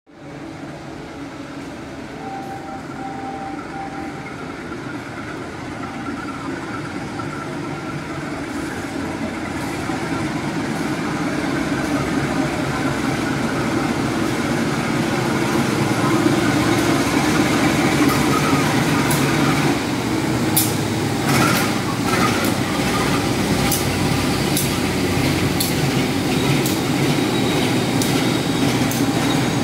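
Diesel locomotive hauling a passenger train pulls into the station, its engine drone growing steadily louder as it approaches. From about two-thirds of the way through, the wheels clack sharply over the rail joints as the carriages roll past, and a thin high squeal comes in near the end.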